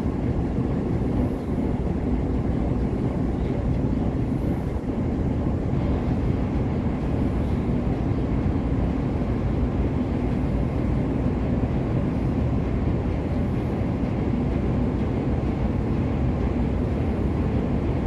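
Diesel engine of a dry-cargo river ship running steadily during locking, a loud, even, low drone that does not change.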